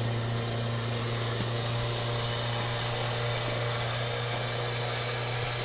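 Electric winch on the front of an off-road SUV running under power, a steady, even motor hum with a whirring hiss over it that does not change in pitch.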